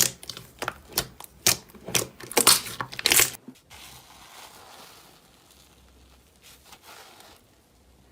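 Slime being pressed and squished by hand, giving sharp crackling pops about twice a second for the first three seconds, then a soft, quieter rustling that fades away.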